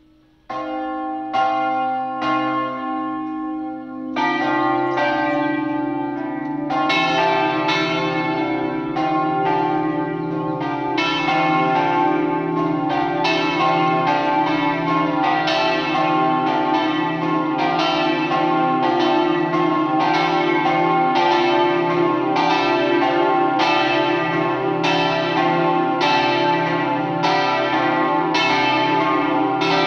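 Church tower bells ringing the festive noon peal, swinging. One bell starts about half a second in, more bells join at about four seconds and again near seven seconds, then they ring together steadily in a continuous run of overlapping strokes.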